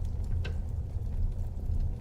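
Wood fire burning in a fireplace: a steady low rumble of the flames with scattered crackles and a sharper pop about half a second in.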